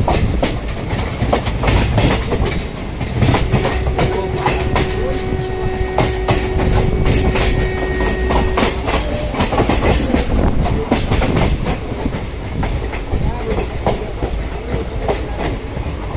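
A passenger train running along the track, its wheels clattering over the rail joints over a steady rumble. A faint steady tone sounds for about five seconds in the middle.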